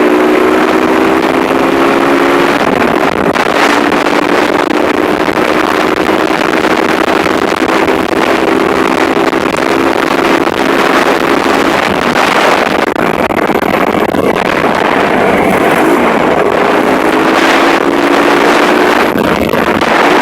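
Motorcycle engine running under way, its pitch climbing slowly in long stretches as it accelerates, under heavy wind rush on the microphone.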